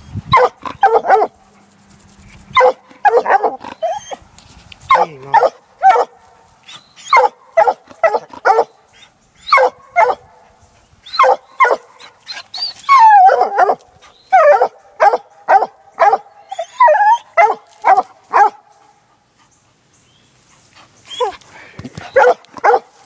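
Black and tan coonhound pup barking up a tree: short choppy barks in quick succession, with one longer drawn-out bay about 13 seconds in. This is the pup treeing at the end of a laid coon trail. The barking stops for a couple of seconds near the end, then starts again.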